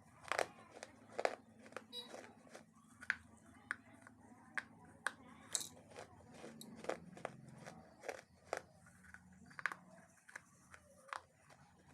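Repeated sharp crunches at an irregular pace, roughly one or two a second, over a faint low steady hum.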